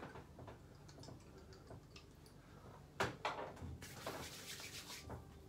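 Faint clicks of a bottle being handled, then about three seconds in a couple of sharp slaps and a brief wet patting: Empress Rising aftershave splash being slapped onto freshly shaved skin.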